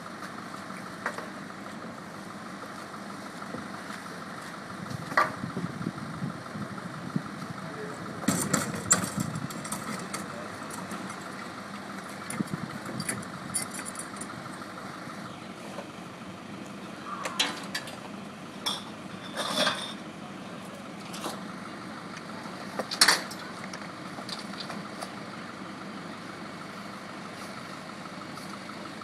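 Small back-loader garbage truck's engine idling steadily, with clatters and knocks of trash and a plastic wheeled bin being handled at the rear hopper; the loudest knock comes about three quarters of the way through.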